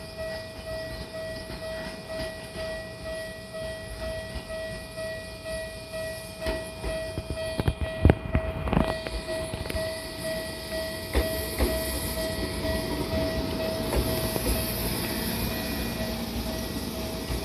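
Gakunan Railway 7000-series electric car rolling slowly over the station points, its wheels knocking sharply across the switches about eight seconds in. A steady, pulsing tone sounds underneath.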